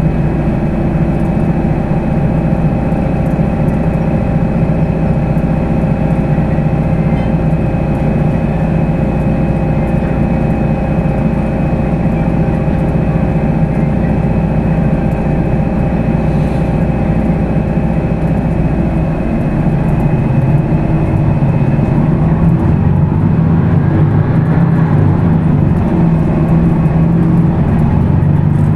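Weichai WP6NG210E50 natural-gas engine of a Higer KLQ6935GC5 city bus running as the bus drives, with a steady drone and thin whining tones over it. About twenty seconds in, the deepest rumble drops away, the sound grows a little louder, and the engine note begins to rise and fall.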